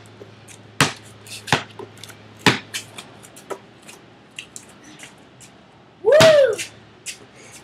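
Basketball bouncing as it is dribbled, single sharp bounces at an uneven pace of about one a second. About six seconds in, a loud, short voice-like cry that rises and falls in pitch.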